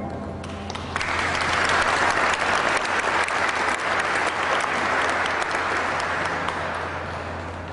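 Audience applauding, the clapping starting about a second in and thinning out near the end, with a steady low hum underneath.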